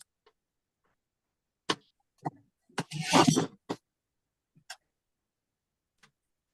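Cardstock pieces being handled and pressed onto a card: a few sharp taps, with a brief scuffling rustle about three seconds in.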